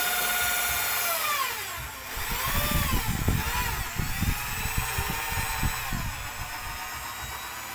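Electric drill with a long mixing rod stirring a bucket of thick homemade dishwashing liquid soap. The motor whines steadily at first. Its pitch drops about a second and a half in, then swings up and down as the speed changes, with uneven low rumbles from the stirred soap.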